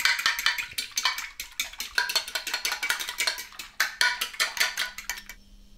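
Eggs being beaten in a bowl: a utensil rapidly clicking against the bowl's side, stopping a little after five seconds in.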